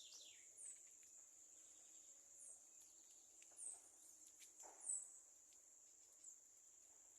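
Faint outdoor chorus: an insect's steady high trill runs throughout, while small birds give short high chirps every second or so.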